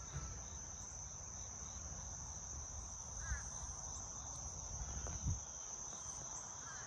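Insects trilling in one steady, unbroken high-pitched tone, with faint low rumble and a couple of soft bumps from the handheld camera.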